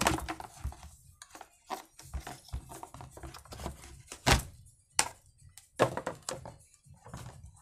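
Irregular knocks and clicks of hard plastic as the rear handle is worked off an Oleo-Mac 937 chainsaw and the saw is shifted and set down on the bench. The loudest knock comes a little past halfway, followed by two more about a second apart.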